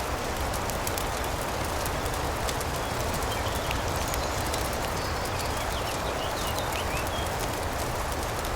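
A fireplace crackling with frequent short pops over a steady hiss of rain. A few faint, high bird chirps come in about halfway through.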